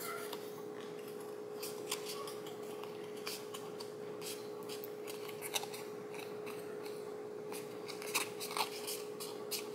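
Paper crackling and rustling as fingers pinch and bend the edges of a paper cutout to curve it, a scatter of small crisp crackles, over a faint steady hum.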